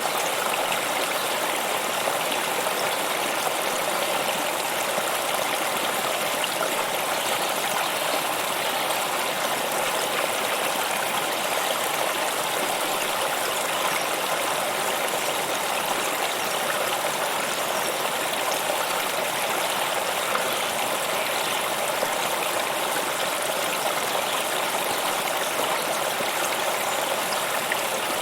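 Running water flowing steadily, an even, unbroken rush.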